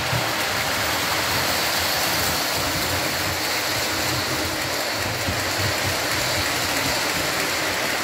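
Lionel model train running on its track: a steady rolling hiss with a low rumble from the wheels and motor.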